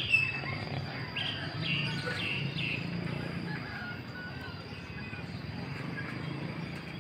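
Birds chirping: several short, high calls in the first three seconds or so, over a low, steady background rumble.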